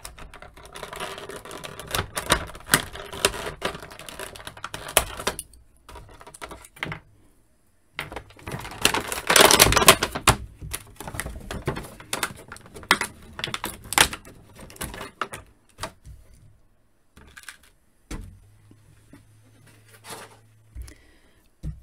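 Clear plastic packaging crinkling and crackling as it is handled and pulled apart to free an action figure, in stretches of dense crackle that are loudest about ten seconds in, then thinning to a few scattered clicks.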